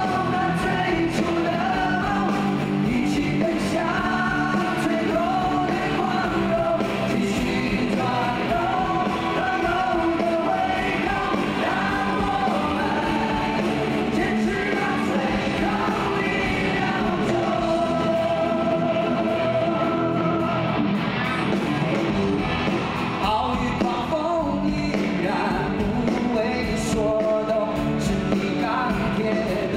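Live rock band music: male vocals sung over acoustic and electric guitars with the band playing along.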